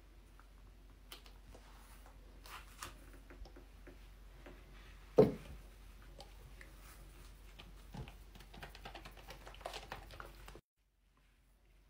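Faint squishing and small clicks of a squeeze bottle being worked over a sink, with one sharp knock about five seconds in.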